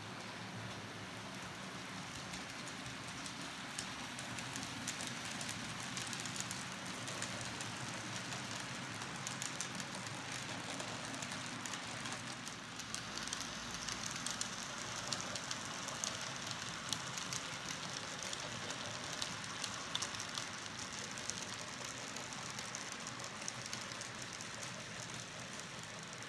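Model railway diesel locomotive hauling a long train of mail vans, with a steady low motor hum and a rapid patter of wheels clicking over the track and rail joints. The clicking grows busier in the middle as the train passes closest.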